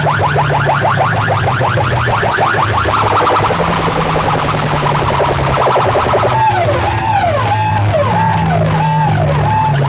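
Loud music from a competition sound system, with a steady heavy bass line under fast repeating electronic siren-like sweeps. Quick rising chirps come for the first few seconds, and slower swooping falls come near the end.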